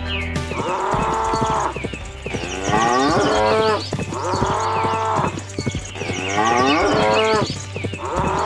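Cow mooing again and again, about five long calls a second or so apart, some held level and some falling in pitch.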